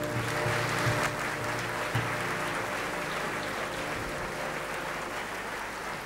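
Theatre audience applauding steadily as the orchestra's final chord of the opera's first-act finale dies away in the first moments.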